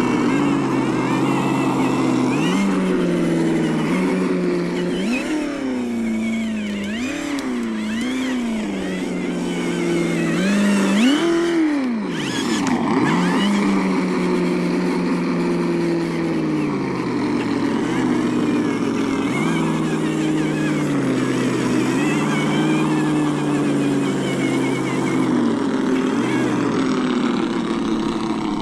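ESS-One engine sound simulator on an RC crawler playing a simulated engine sound through its speaker, rising and falling with the throttle: a run of quick revs in the first half, then a steadier note that steps up and down. The truck's electric motor, gears and tyres add a hiss underneath.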